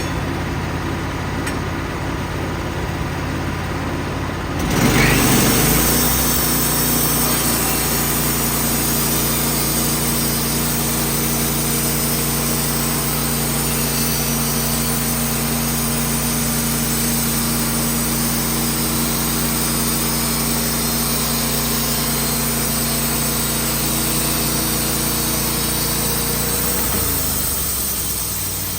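Wood-Mizer band sawmill's engine running at idle, then throttling up about five seconds in as the band blade engages. It runs steadily under load for about twenty seconds and winds back down near the end.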